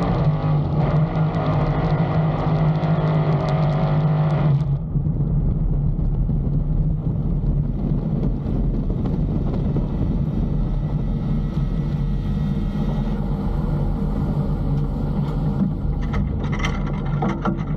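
Farmboat's V8 engine running hard with a steady drone while a fire burns at its carburettor. About five seconds in the sound suddenly dulls and drops to a lower, steady rumble.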